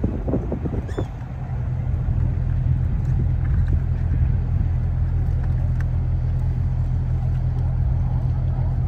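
Diesel engine of a commercial fishing boat running in a steady low drone as the boat motors slowly through the harbour.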